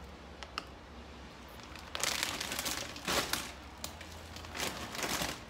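Plastic snack bag (a family-size Twisties bag) crinkling as it is handled: a few light clicks, then several loud bursts of rustling from about two seconds in.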